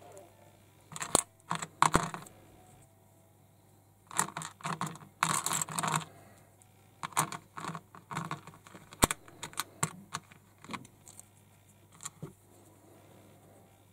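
Small plastic toy figure parts and their packaging being handled: scattered clicks and rattles, busiest in two bursts about one to two seconds in and four to six seconds in, with single sharp clicks near two and nine seconds.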